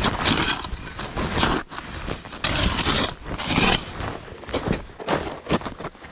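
Irregular crunching and scraping on hard-packed snow, about one burst every half-second to second, as snowshoes shift and a snow shovel is handled, with jacket fabric rustling and rumbling close to the microphone.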